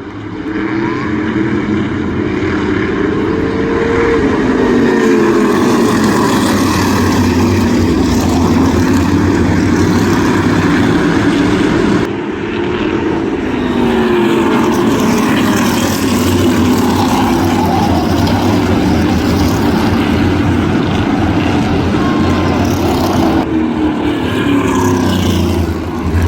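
Several crate V8 modified race cars running together at speed, their engines rising and falling in pitch over and over as they accelerate off the corners and ease into them.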